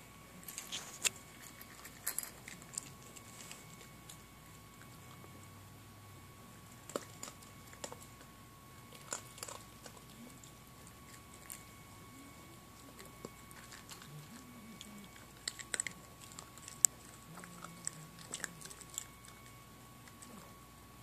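Puppy crunching dry kibble, eating from a stainless steel bowl, heard as scattered clusters of sharp crunches and clicks with pauses between them.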